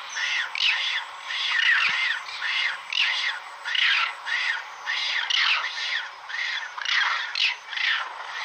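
Repeated high-pitched squealing calls, about two a second, from dholes seizing a sambar deer fawn in a pond.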